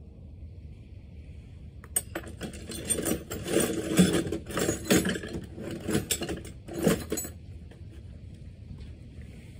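Loose metal clinking and clattering in a quick, irregular run for about five seconds, then stopping: hand tools or small metal parts being handled and rummaged through.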